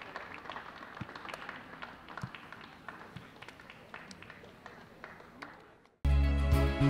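Scattered clapping and a few voices from a small crowd at a football match, fading away; music cuts in abruptly near the end.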